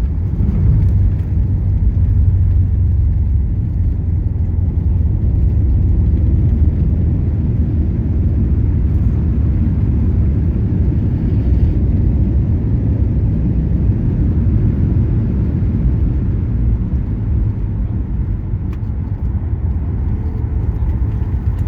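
Boeing 737-900ER cabin noise heard from a window seat during landing: a loud, steady low rumble of engines and airframe that eases slightly near the end.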